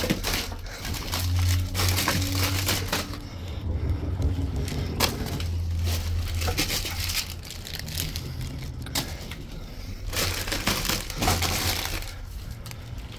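Plastic-wrapped candy packs and cardboard being handled: wrappers crinkling and rustling, with irregular knocks and clatters as the packs are gathered and dropped into a cardboard box.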